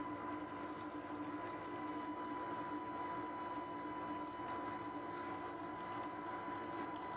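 H-60 Seahawk helicopter running, heard from inside the aircraft: a steady roar of engine and rotor noise with a constant high whine through it that does not change.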